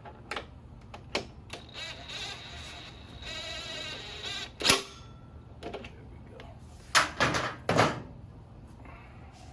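Metal clicks, knocks and a rattling scrape as a motorcycle front wheel and axle parts are worked loose from the fork, with one sharp knock about halfway through and a quick run of knocks near the end.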